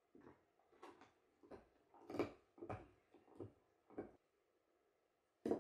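Akita Inu gnawing a frozen raw marrowbone: irregular crunches and clicks of teeth on bone, about eight in the first four seconds, a short pause, then the loudest crunch near the end.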